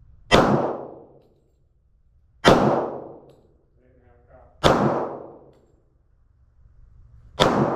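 Four single gunshots fired slowly, about two to three seconds apart, each cracking sharply and then echoing away over about a second.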